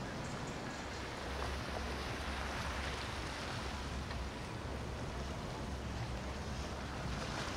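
Motor yacht engines running with a low rumble under the rush of wake and choppy water. The rumble gets heavier about a second in.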